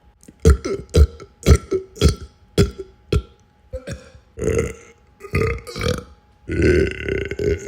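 Human belching, over and over: a quick run of short burps about two a second, then a few longer, drawn-out belches in the last few seconds.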